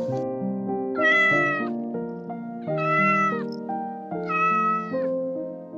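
A domestic cat meowing three times, each meow short and about a second and a half apart, over soft background music.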